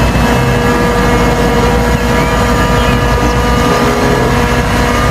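Dump truck engine running steadily at an even pitch: a loud, constant drone with a deep hum underneath.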